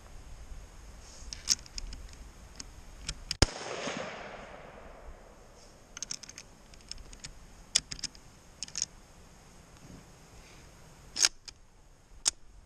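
Scattered sharp metallic clicks and clacks from a Mosin Nagant bolt-action rifle's action being handled. About three and a half seconds in, a single loud gunshot rings out from elsewhere on the range, with its echo trailing off over about a second and a half. Two more sharp cracks come near the end.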